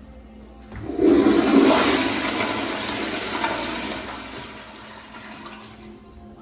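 A commercial restroom fixture flushing. A loud rush of water starts suddenly about a second in and is strongest for the first second or so, then tapers off over the next few seconds.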